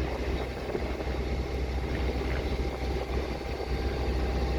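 Steady low drone of the sailboat's inboard engine running under way, with a constant rushing noise over it.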